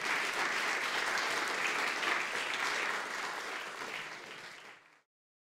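A lecture-hall audience applauding, a dense patter of many hands clapping at once; it fades over the last couple of seconds and cuts off about five seconds in.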